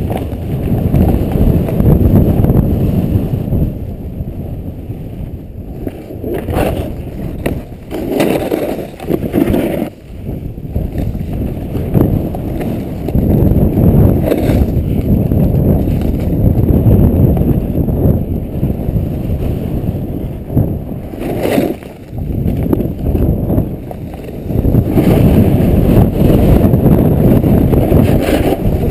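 Wind buffeting the microphone of a body-mounted action camera while snowboarding downhill, with the board running and scraping over the snow. The rush swells and dips as the ride speeds up and slows.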